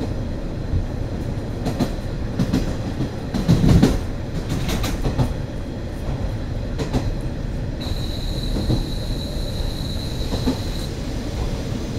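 Running noise heard inside a KiHa 40 diesel railcar: a low rumble with irregular clacks of the wheels over rail joints, loudest about four seconds in. For about three seconds past the middle, a thin high steady squeal sounds over it.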